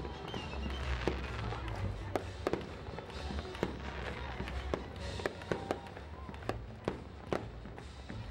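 Aerial fireworks bursting: an irregular rapid series of sharp bangs and crackles over a low rumble, with orchestral music playing underneath.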